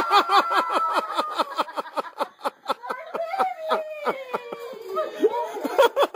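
A person laughing hard and high-pitched in quick, rapid pulses that keep going without a break, the pitch sliding slowly lower as the fit goes on.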